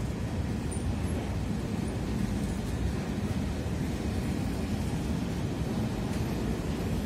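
Freight train of loaded two-deck car-carrier wagons rolling past at a steady speed: a steady low rumble of wheels on rail.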